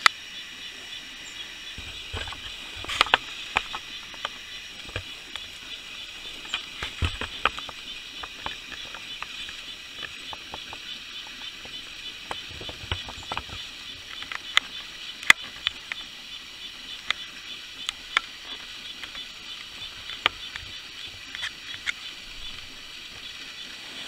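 Red-breasted nuthatch calling: short, sharp notes at irregular intervals over a steady hiss.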